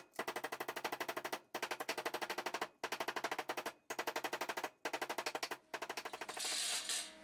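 Hammer tapping rapidly on an aluminium strip to bend it into a curve: runs of quick, even metallic taps, about ten a second, with short pauses between the runs and a faint ring from the metal. A brief rushing noise follows near the end.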